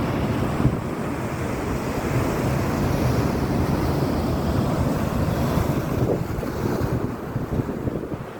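Sea waves under heavy wind buffeting the microphone, a dense rough rushing that eases a little near the end.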